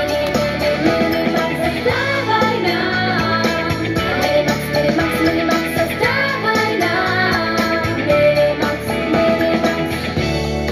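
Upbeat pop song played loud in a live performance, with girls' voices singing over it.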